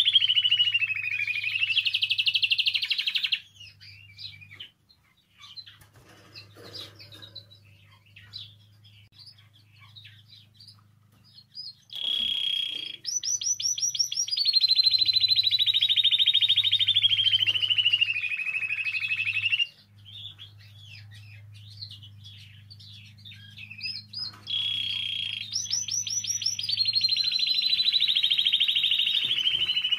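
Spanish timbrado canary singing: long, loud rolling trills that slide down in pitch, in three phrases, at the start, about twelve seconds in and again from about twenty-five seconds, with softer scattered chirps between them. A faint steady low hum lies under the song.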